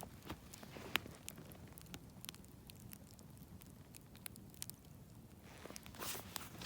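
Wood campfire crackling softly, with scattered sharp pops and snaps, and a brief louder rush of noise near the end.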